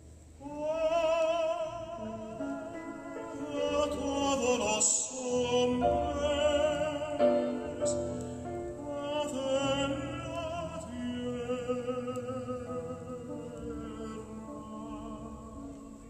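Recorded operatic singing with strong vibrato over low accompaniment, played back through a hi-fi system of Blumenhofer Classic 1733 loudspeakers and Trafomatic tube amplifiers. The voice comes in about half a second in and eases off near the end.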